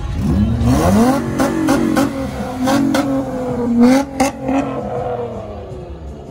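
A car engine revving hard: the pitch climbs steeply over the first second or so, holds near the top with a wavering tone for a few seconds, then eases off near the end.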